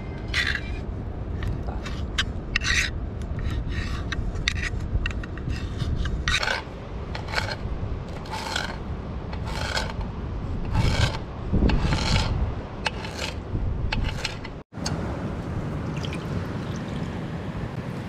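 Knife blade clicking and scraping against metal: first cutting cooked octopus in a frying pan, then slicing parsley in a metal bowl in rasping strokes about once a second. A steady low rumble runs underneath.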